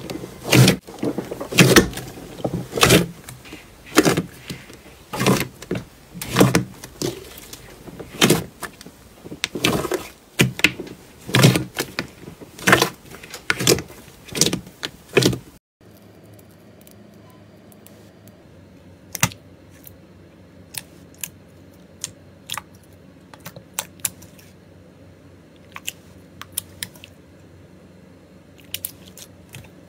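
Hands squeezing and pressing slime, making loud crackling and popping clicks in quick succession. About halfway through the sound drops to a quieter stretch with only a few faint clicks.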